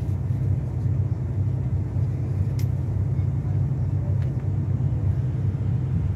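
Mercedes-Benz O-500RSD 2441 coach's diesel engine running steadily under way, a deep even rumble, with a couple of faint clicks.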